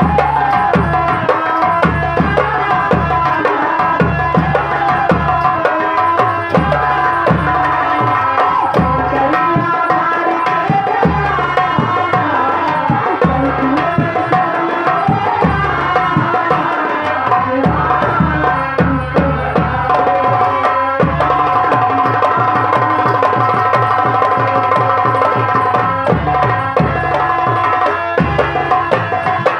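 Live Nautanki folk music played through a loud PA: fast hand-drum rhythm with a wavering melody line above it. The drumming gets denser and more even about two-thirds of the way through.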